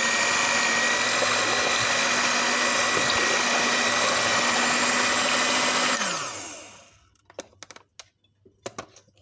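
Electric hand beater running at a steady speed, whisking eggs, cream and condensed milk into a batter, then switched off about six seconds in, its whine falling as the motor winds down. A few light knocks follow.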